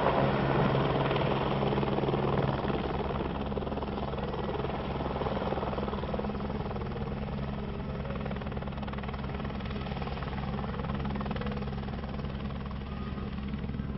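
Aircraft engine and propeller running with a fast, even beat, slowly fading as the aircraft moves away.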